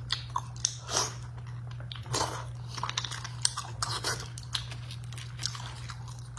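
Close-miked mouth sounds of eating soft beef bone marrow: short wet slurps and chewing noises come every second or so, with small sharp clicks between them. A steady low hum runs underneath.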